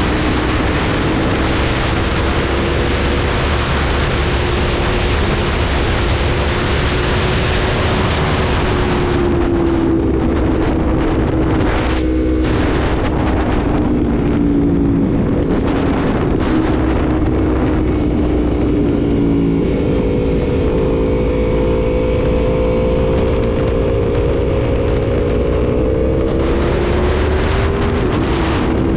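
Aprilia motorcycle engine running steadily at highway cruising speed, its note drifting slightly up and down, with heavy wind rush on the microphone. The wind eases for a stretch in the middle and picks up again near the end.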